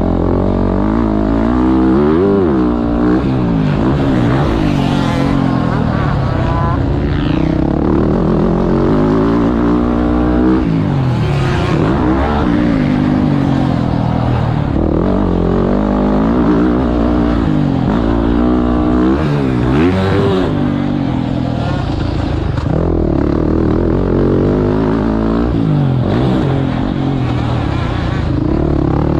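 Four-stroke motocross bike engine breathing through an FMF Factory 4.1 RCT exhaust, revving up and dropping back over and over as the throttle is worked on the track.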